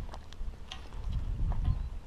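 Footsteps crunching on dry, gravelly dirt, with a few sharp separate clicks and a low rumble of handling or wind on the microphone.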